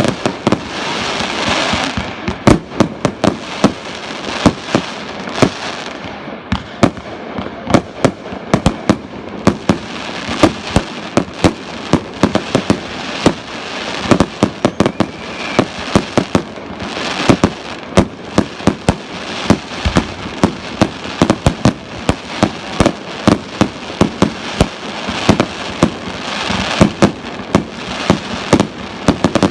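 Fireworks display: rapid, irregular bangs of shells bursting, often several a second, over a steady hissing haze that swells near the start and again near the end.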